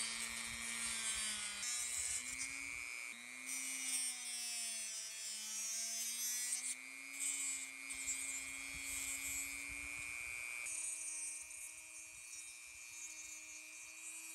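Small handheld rotary tool spinning a thin cut-off disc with a steady high whine, cutting into a small plastic diecast-car part with a hiss. The motor pitch wavers and dips as the disc bites, and the hiss drops out briefly a couple of times as the part is lifted away.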